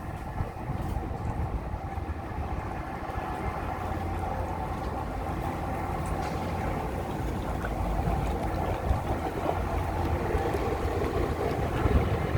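Steady low rumble of a battery-electric canal tour boat underway, with a faint steady hum, gradually getting a little louder.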